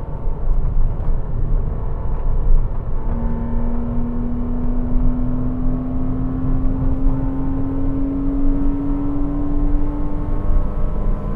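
Porsche Cayman 987's 2.7-litre flat-six engine running under load with a deep rumble, its pitch climbing slowly and steadily from about three seconds in as the car accelerates through a gear.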